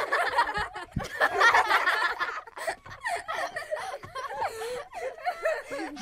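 Voices laughing and giggling, several short laughs one after another, denser in the first couple of seconds and thinning out after.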